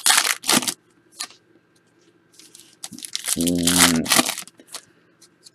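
Plastic wrapping crinkling and tearing in short bursts as a box of football trading cards is unwrapped.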